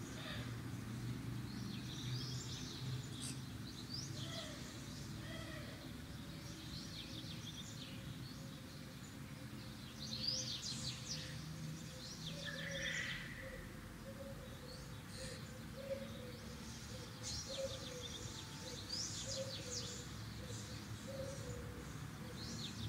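Small birds chirping and calling on and off, over a low steady background hum.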